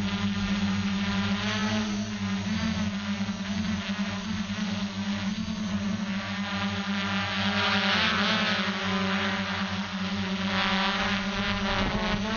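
Electric motors and propellers of a radio-controlled multirotor heard from its onboard camera: a steady buzzing hum whose pitch swings up and down with throttle changes about eight seconds in and again near the end.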